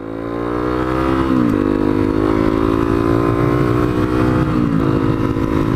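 Honda CRF250L single-cylinder engine under way: its pitch climbs for the first second and a half, drops suddenly, holds steady, and drops again near the end.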